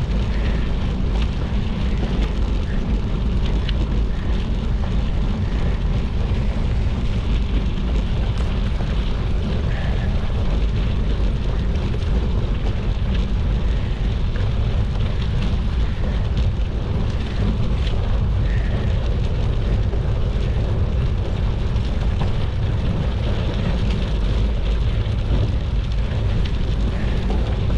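Steady wind rumble on the microphone over the rolling tyre noise of a Trek Checkpoint gravel bike riding a snowy gravel and dirt road.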